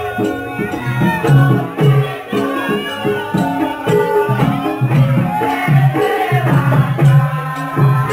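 Javanese traditional dance music, gamelan-style: a hand drum beats a steady pattern of about two to three strokes a second under held and gliding melody lines.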